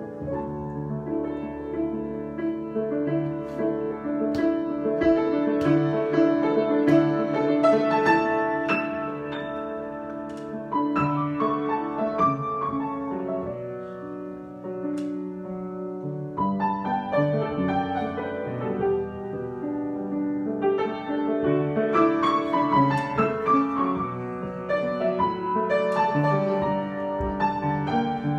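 Solo piano playing an improvisation: flowing melody over sustained chords, swelling and easing in loudness, with a softer passage about halfway through.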